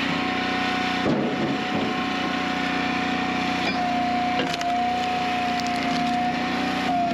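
Easton Made Ultra wood splitter running steadily with a constant whine, while logs crack and split apart about a second in and again around four and a half seconds in.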